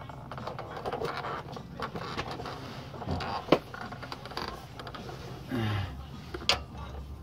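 Scattered clicks, scrapes and small metal knocks of hand work on a car's exhaust pipe and clamp, with a sharper knock about halfway through and another near the end.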